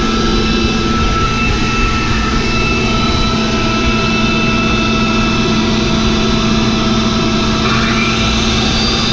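Circular saw fitted with a DeWalt blade cutting through a concrete slab: a loud, steady motor whine over a grinding rasp that holds even throughout.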